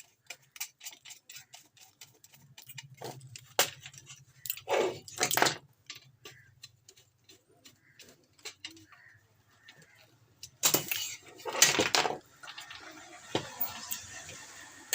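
Small metal parts and hand tools clinking, clicking and scraping on a workbench while a circuit board is being assembled, with a couple of longer rasping scrapes about five seconds in and again near eleven seconds.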